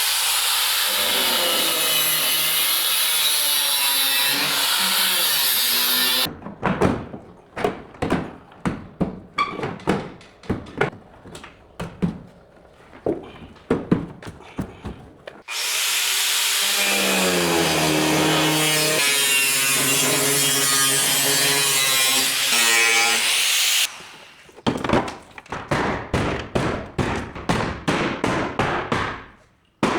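A handheld power tool runs steadily in two stretches, its pitch shifting as it works. Between and after them come runs of short, sharp strokes, about two to three a second, and the changes between the two sounds are abrupt.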